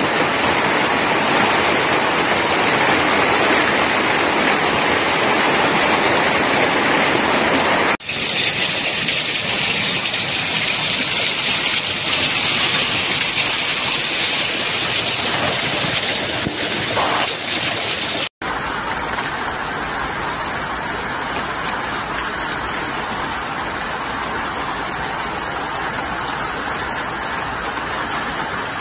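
Heavy hail falling and striking the ground and surrounding surfaces: a dense, steady clatter. It changes abruptly twice, about 8 and 18 seconds in, where one recording cuts to the next.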